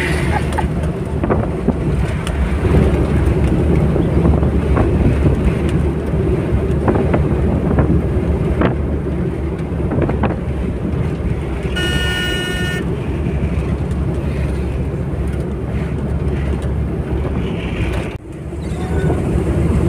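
Steady low rumble of engine and tyre noise inside a vehicle driving at highway speed, with some wind noise. About twelve seconds in, a brief steady beep-like tone sounds for under a second.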